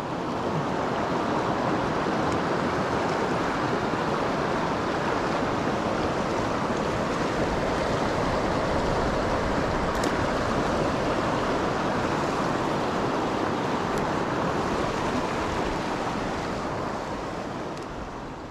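A fast, rocky mountain creek rushing steadily over stones, fading out near the end.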